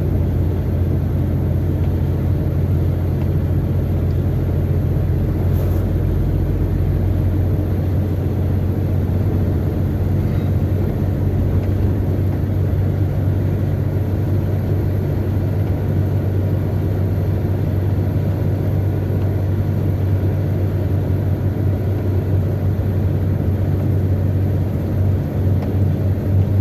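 Truck's diesel engine running steadily at about 1600 rpm in sixth gear, low range: an even low drone with no change in pitch.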